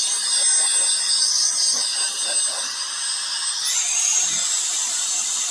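A small high-speed motor running steadily with a hiss and a high whine that steps up in pitch a little past halfway through.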